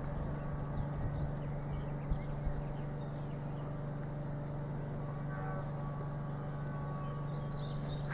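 Industrial woodworking machine running with a steady hum that does not change.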